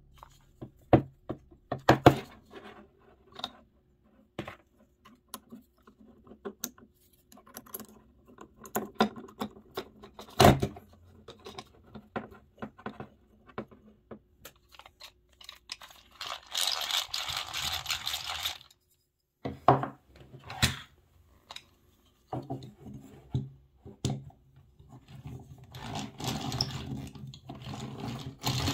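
Vintage Sears egg-beater hand drill with nylon gears: clicks and knocks as the chuck is handled and a twist bit fitted, a short spell of whirring gears a little past halfway, then the crank turned steadily near the end as the bit bores into a wood block.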